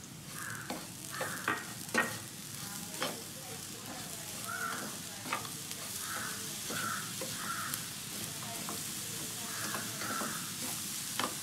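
A spatula stirring grated coconut and jaggery in a hot nonstick frying pan, with scattered taps against the pan. A steady sizzle, as the mix cooks in ghee, grows a few seconds in.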